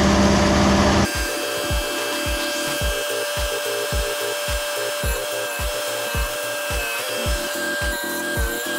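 Stump grinder's Cummins diesel engine running loudly, cut off about a second in by background music with a steady drum beat.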